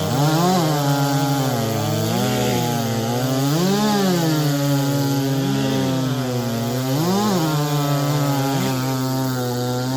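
Two big-bore racing chainsaws of over 90cc at full throttle, cutting through a log under load. Their engine notes jump up briefly about every second and a half as the chains clear the wood, then drop back as the chains bite again.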